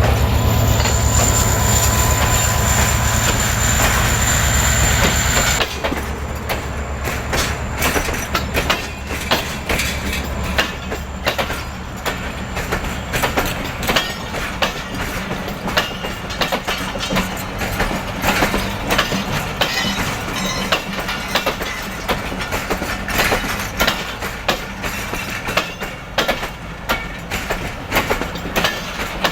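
An EMD HGMU-30 diesel-electric locomotive passes close by with a steady high whine. About five and a half seconds in it drops away, and the passenger coaches roll past with a continuous clickety-clack of wheels over the rail joints.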